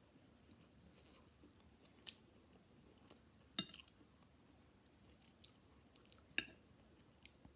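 Metal fork clinking against a ceramic plate while gathering chow mein noodles: four short sharp clicks, the loudest about three and a half seconds in and just after six seconds, over faint chewing.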